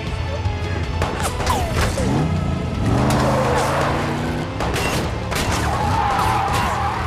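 Film action soundtrack: a car engine revving up and tyres squealing over a music score, with several sharp hits.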